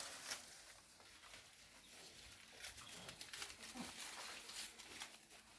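Goats moving about, faint and close: scattered rustling and clicking, with one short low call about three and a half seconds in.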